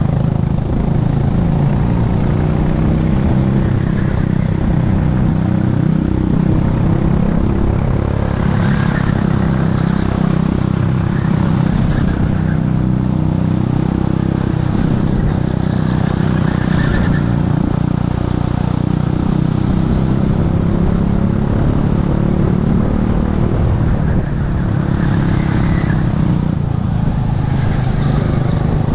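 Techspeed P1000 rental kart engine at racing speed, its revs rising and falling with the corners, mixed with wind rush on the helmet-mounted camera.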